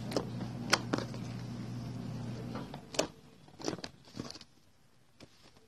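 Hand squishing and poking glossy slime, giving scattered sharp sticky clicks and pops, over a steady low hum that stops about halfway through.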